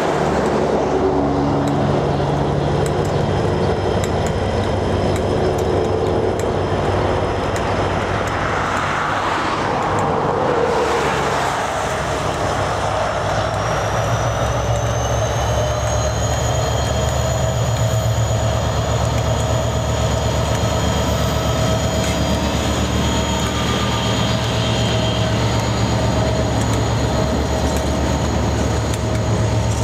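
Diesel-electric locomotives of a KiwiRail freight, led by a DFT-class unit, approaching and passing slowly with a steady low engine rumble. From about halfway in, a high whine rises and then holds level.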